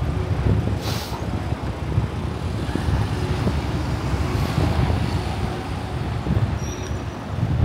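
Town-centre street traffic, vehicles passing, with wind rumbling on the microphone and a short hiss about a second in.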